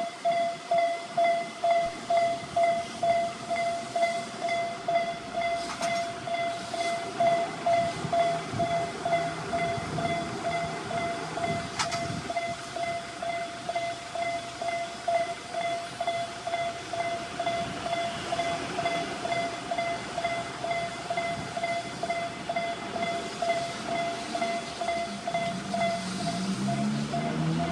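Japanese railway level-crossing electronic warning alarm ringing in a steady repeating tone at just under two strokes a second, while a train runs through the crossing over the rails. The alarm sounds weak and listless, 'with no motivation at all'. Music comes in near the end.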